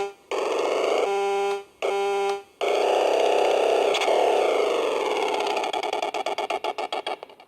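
Electronic sound effects from a vintage Nikko RC boat radio controller: a few short buzzy horn-like tones with gaps between them, then a noisy wavering synthesized sound that breaks into rapid stuttering pulses and fades out near the end. The controller's sound-effect circuit is malfunctioning.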